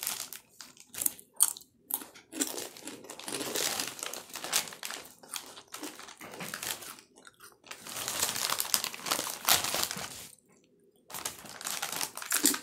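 Doritos tortilla chips crunching as they are chewed, mixed with the crinkling of the foil chip bag as hands reach in for more. The crackling stops briefly about ten seconds in.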